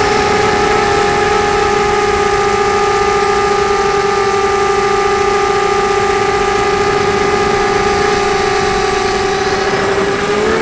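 FPV multirotor drone's electric motors and propellers whining steadily at a constant pitch over a rushing hiss of air, with the pitch shifting slightly near the end.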